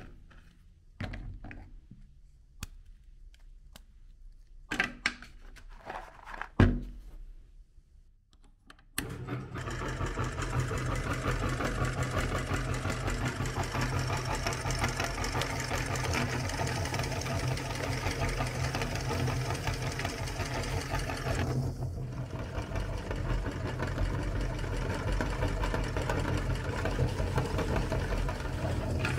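Crisp biscuits clatter and crackle as they are handled on a plate, with a sharp snap of one breaking about six and a half seconds in. From about nine seconds a motor-driven metal meat grinder runs steadily, grinding the biscuits into crumbs.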